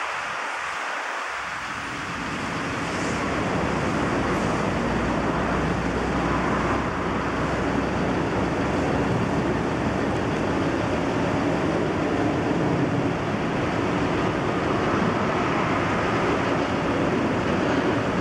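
Heavy road traffic noise, a steady rumble of passing vehicles that grows louder about two seconds in and then holds.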